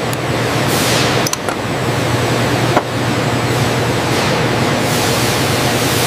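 Steady loud hiss with a low hum underneath, broken by a couple of sharp clicks about a second and nearly three seconds in, like tools on the rifle being assembled.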